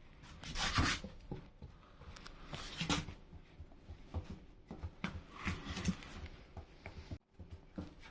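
Scattered rustling and scuffling with short clicks, from a Staffordshire terrier puppy moving about and being handled, in three louder spells.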